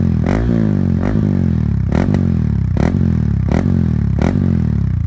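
Yamaha WR155R's single-cylinder four-stroke engine running through a Radamel F4 carbon aftermarket exhaust, blipped repeatedly, about once a second. Each rev rises sharply and drops straight back, giving a dense, bassy exhaust note.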